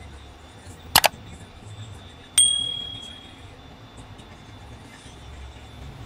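Two sharp metallic clicks about a second in, then a small metal tool strikes metal with a bright ding that rings out for about a second. Under it all runs the steady low blowing hum of a hot air rework station.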